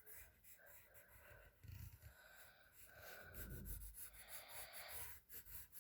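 Faint scratching of a pencil drawing strokes on paper.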